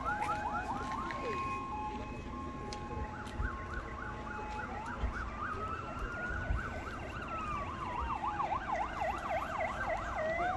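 Several fire-engine sirens sounding at once, overlapping: a fast yelping warble, a slow wail that rises and falls, and a steady two-note tone that stops about halfway through.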